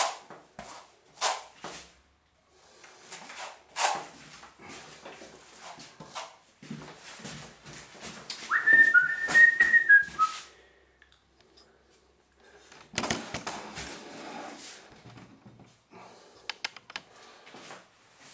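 Texturing comb scraping through wet artex on a wall in a series of short separate strokes, with a short high whistle of a few falling notes about halfway through.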